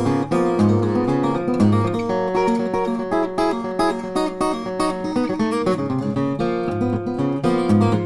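Background music: an acoustic guitar playing a run of plucked and strummed notes.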